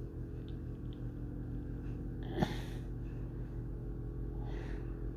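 Steady low hum with a single sharp click about halfway through, and a short breath near the end.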